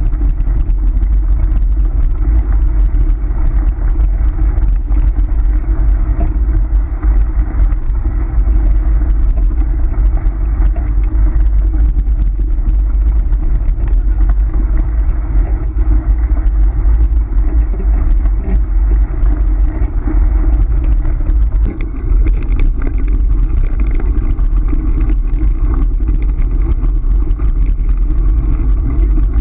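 Steady, loud rolling rumble of a dog-pulled Kostka kick scooter running over a gravel and dirt road. A faint thin whine joins about two-thirds of the way through.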